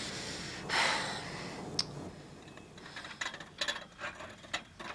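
A short breathy hiss about a second in and a single sharp click, then a run of sharp, irregular clicks or taps, several a second, in the second half.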